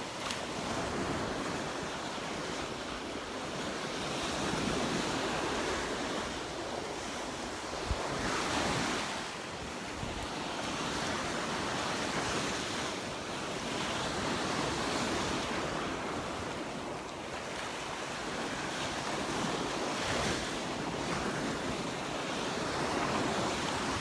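Gulf surf washing onto the beach, swelling and fading every few seconds, with wind buffeting the microphone.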